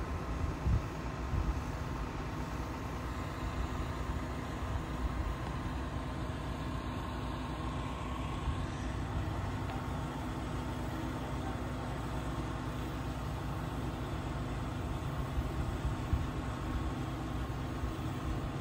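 Mobile crane's diesel engine running steadily under load while it holds a manufactured-home section aloft, heard as an even low rumble.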